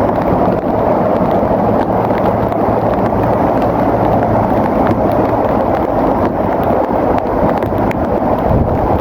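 Bulldozer's diesel engine running steadily under load, a loud, even noise with scattered small clicks and knocks.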